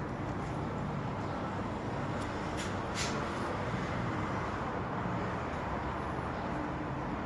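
Car engine running at a steady idle.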